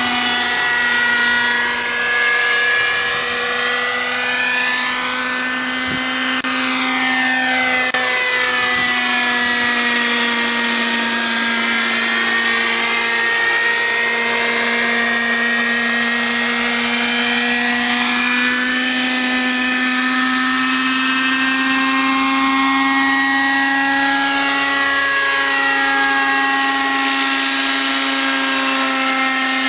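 Radio-controlled MD500 scale model helicopter flying close overhead: a steady, loud whine from its drivetrain and rotors, the pitch holding level while the tone sweeps and shifts slowly as the model moves about.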